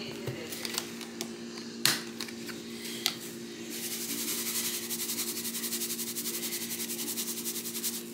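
Spice grinder being twisted by hand: a few sharp clicks, then from about four seconds in a fast, even run of gritty ticks, over a steady low hum.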